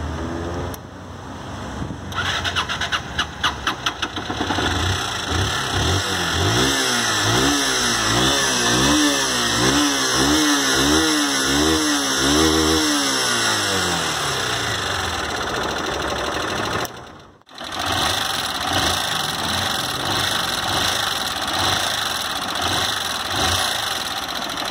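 Honda CG Fan 160 single-cylinder four-stroke engine starting about two seconds in, then revved up and down repeatedly and left running, with the loud top-end tapping ("tec-tec") of a worn intake valve: its adjusting screw and valve tip were worn down by running on old, low oil.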